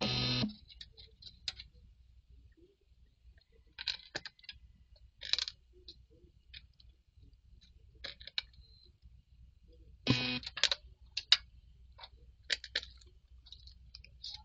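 Gray-cowled wood rail calling: two short buzzy, rasping notes, one at the start and one about ten seconds in, amid scattered soft clicking sounds.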